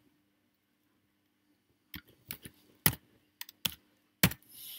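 Computer keyboard keys tapped about seven times, starting about two seconds in, as a number is typed in.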